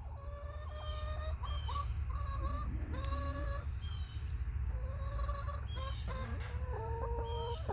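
Backyard hens calling, many short drawn-out level calls overlapping one another, with a few thin, higher chirps mixed in and a steady low rumble underneath.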